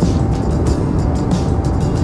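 Background music with a steady beat, over a low steady rumble.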